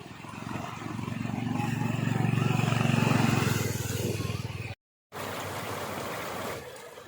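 A motor vehicle's engine passes by, growing louder to a peak about three seconds in and then fading. The sound drops out for a moment just before five seconds and returns as a steadier noise.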